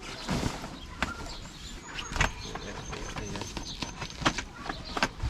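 Scattered knocks and clicks, four louder ones spread through, over a low rumble, with a faint high whine in the middle.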